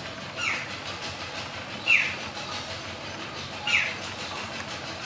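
Jungle babbler calling: three short notes that each fall in pitch, spaced about a second and a half to two seconds apart, over a steady background hiss.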